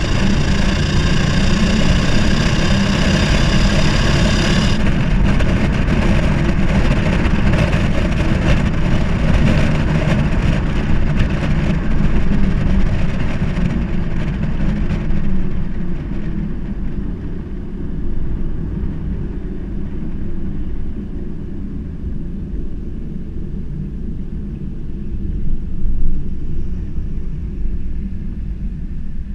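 Holden VR car's engine and exhaust running under acceleration, loud for about the first fifteen seconds, then settling to a quieter, steady run. The exhaust note is the one the owner treats as a problem under acceleration.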